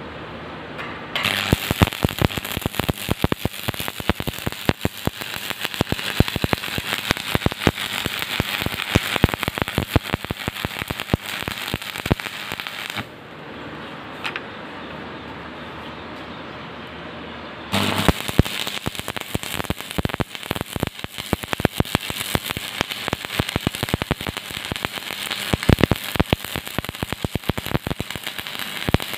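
Stick (shielded metal arc) welding on rusty square steel tube: the arc crackles steadily, stops for about five seconds in the middle, then strikes again and crackles on.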